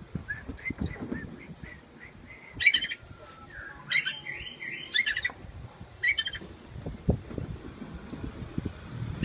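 An oriental magpie-robin gives short, high chirps and scratchy calls, about five separate bursts with a busier run in the middle. Its cage is being shaken, and low knocks and rattles from the cage sit under the calls.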